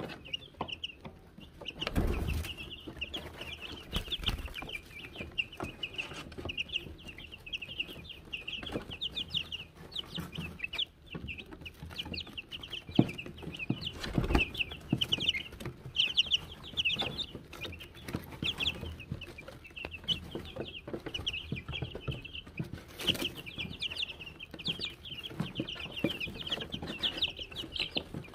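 Young Wyandotte chicks peeping continuously, a dense chorus of short, high cheeps. A few knocks stand out above it, the loudest about two seconds in and near the middle.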